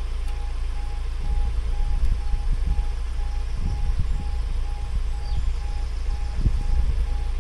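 UK level crossing audible warning sounding a steady electronic beep of one pitch about twice a second while the barriers come down, over a low gusting rumble.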